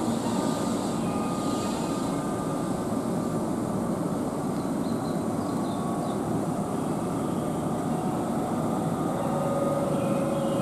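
Keihan electric commuter train running through the station: a steady rolling rumble, with a faint whine coming in near the end.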